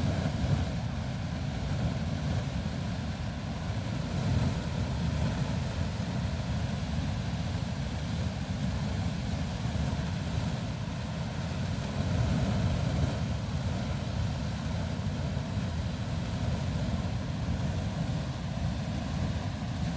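Lone Star Geyser erupting: a steady, unbroken rush of water and steam jetting from its cone.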